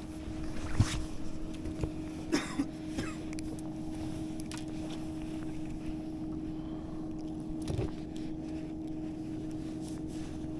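Steady hum of a small electric motor on a bass boat, with a few light clicks and knocks as a caught perch is unhooked by hand.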